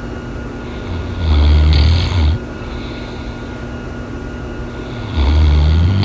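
Dog snoring: two loud, low rumbling snores about four seconds apart, each ending in a hiss, with quieter breathing between them.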